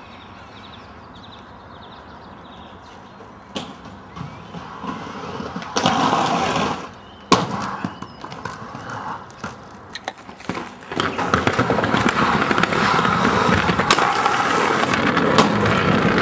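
Aggressive inline skate wheels rolling over stone paving slabs: scattered sharp knocks and a short roll about six seconds in, then from about eleven seconds a loud, steady rolling rush with quick clicks over the slab joints.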